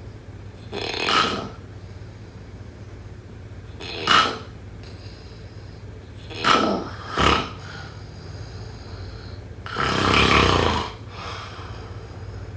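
A sleeping person snoring, one snore every two to three seconds. One snore comes as two quick snorts, and the last one, near the end, is longer.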